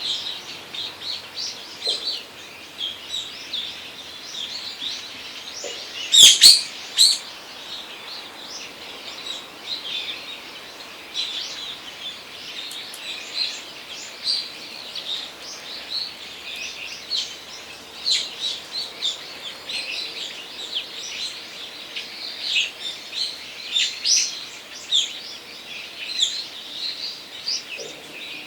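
Many small forest birds chirping and calling over a faint steady background hiss, with a brief louder burst about six seconds in.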